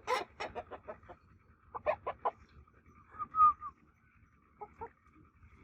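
Rooster clucking: a quick run of short clucks that slow down, then three more about two seconds in. A brief pitched call, the loudest sound, comes just past the middle, and two last clucks come near the end.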